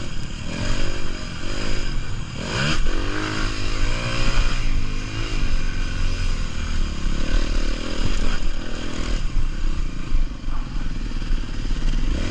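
Honda CRF four-stroke motocross bike engine heard from the rider's seat, revving up and down through the gears on the track. Its revs settle lower in the last few seconds as the bike slows to a roll.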